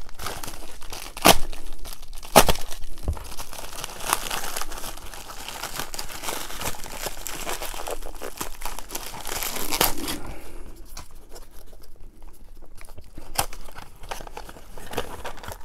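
Plastic poly mailer bag crinkling and tearing as it is pulled open by hand, with two sharp snaps a second or two in. From about ten seconds in, quieter rustling and a few clicks as a small cardboard mailer is opened.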